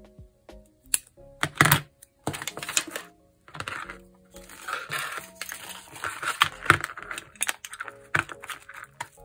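Soft background music under craft-table handling sounds: scissors snipping double-sided tape, with sharp snips about one and a half seconds in and scratchy rustling of tape and paper after.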